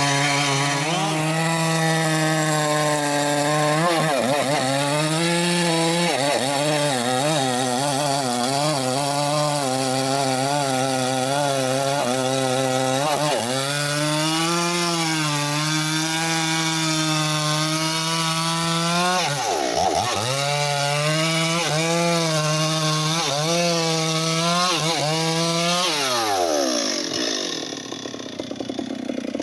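Stihl MS381 two-stroke chainsaw at full throttle cutting through a large rain-tree (trembesi) log. The engine note sags and recovers over and over as the chain bites into the wood. Near the end the throttle is released and the engine winds down toward idle.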